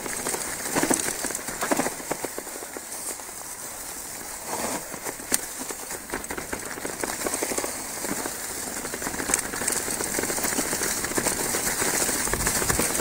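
Mountain bike tyres rolling fast over a leaf-covered forest trail: a continuous crackling rustle of leaves with many small clicks and knocks from the bike over the ground, one sharper knock about five seconds in.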